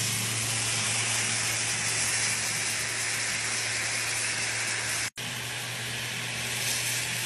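Teriyaki sauce sizzling steadily in a hot steel pan around a seared steak as it reduces to a glaze, with a low steady hum underneath. The sound drops out for an instant about five seconds in.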